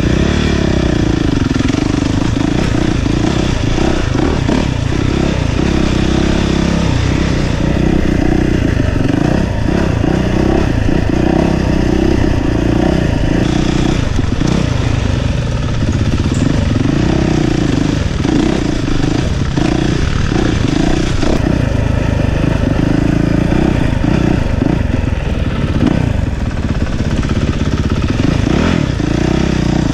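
ATV engine running as it is ridden along a dirt trail, its note rising and falling with the throttle.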